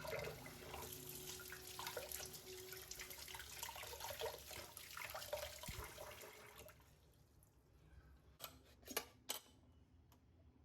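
Water running from a kitchen tap into a sink for about seven seconds, then stopping, followed by a few sharp clicks or knocks.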